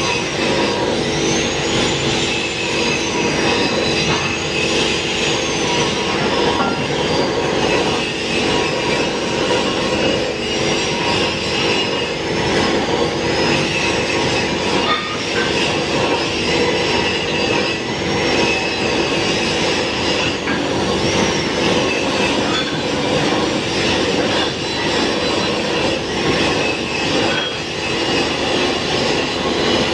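Angle grinders running against steel pipe: a steady loud whir with a high whine that rises and falls in pitch again and again as the discs are loaded.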